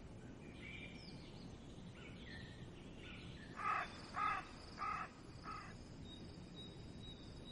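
A crow cawing four times, about half a second apart, a little past the middle, over faint bird chirps and a low outdoor hiss.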